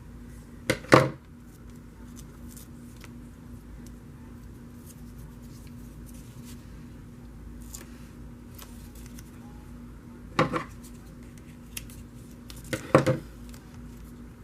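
Scissors snipping in three short bursts, each a quick double click, with quiet room tone between them.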